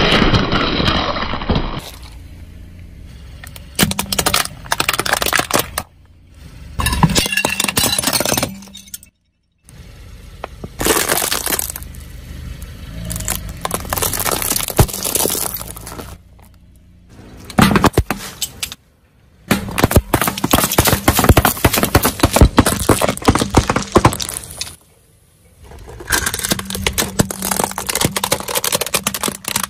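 A car tyre crushing objects one after another: a watermelon, a ball coated in candy-coated chocolates and a plastic toy excavator. The sound is crunching, cracking and snapping in about eight separate bursts, each ending abruptly.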